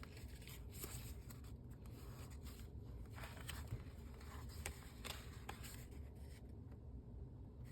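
Faint rustling and scattered light taps of paper pages and flaps being handled and turned in a handmade paper-bag journal.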